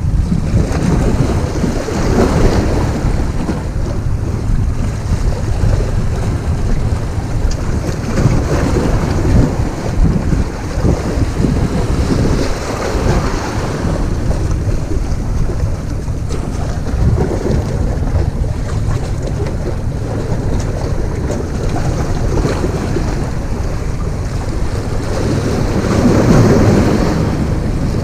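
Wind buffeting the microphone in a steady low rumble, with sea waves washing against the rocks below and swelling louder a few times.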